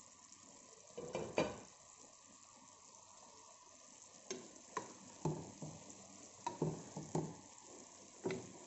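Wooden spoon stirring a stew in a pot, knocking and scraping against the pot: a short cluster of strokes about a second in, then a run of strokes from about four seconds, over a faint steady hiss from the cooking pot.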